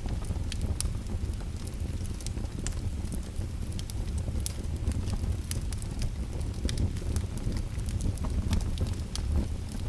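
Fire crackling: many irregular sharp pops and snaps over a steady low rumble.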